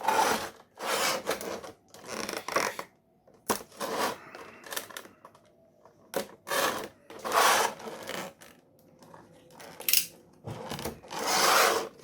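Sticky tape being pulled off toy packaging: a series of short rasping tears and plastic rustles, with a few sharp clicks in between.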